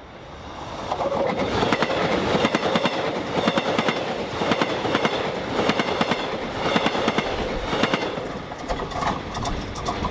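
Passenger train passing close by, its wheels clattering in a rapid run of clacks over the rail joints. It builds up over the first second and then stays loud.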